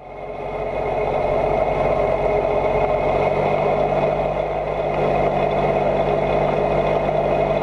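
A motor or engine running steadily with an even hum, fading in over the first second.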